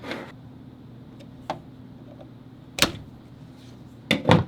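A few sharp clicks and knocks of small metal parts and a screwdriver being handled on a vintage sewing machine, the loudest a double knock near the end.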